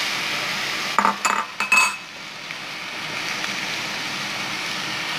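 Minced meat frying in hot oil in a steel pan, a steady sizzle, as a wooden spatula stirs it. A few sharp clinks and knocks of the spatula against the pan come between one and two seconds in.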